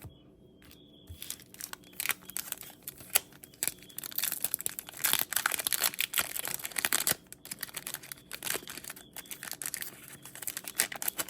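Foil trading-card pack wrapper crinkling and tearing as cards are handled: an uneven run of crackles and snaps that begins about a second in and is densest in the middle.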